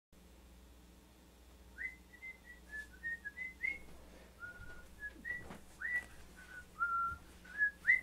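A person whistling a tune: a string of about a dozen short held notes, several sliding up into their pitch, beginning about two seconds in. Faint knocks are heard among the notes.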